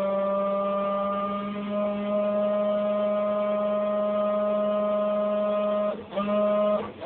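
Graphics card fan making an abnormal steady humming drone with several overtones, rather like a bleat. Near the end it cuts out briefly twice and starts again.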